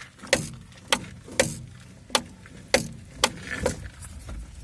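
Front suspension of a Renault Scenic 2 knocking: about seven sharp knocks at uneven intervals, each with a short ring. The owner traces the knocks to a noisy shock absorber and its worn top strut mount cup.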